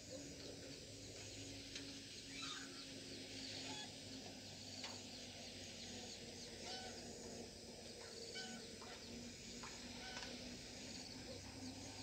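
Spotted doves cooing softly in a low voice, over a steady high chirring of insects.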